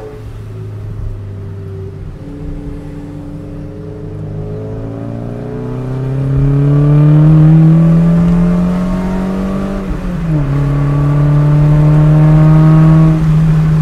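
Car engine heard from inside the cabin while driving. It runs steady at first, then the revs climb for several seconds as the car accelerates. About ten seconds in the pitch dips slightly, as at a gear change, and then holds steady.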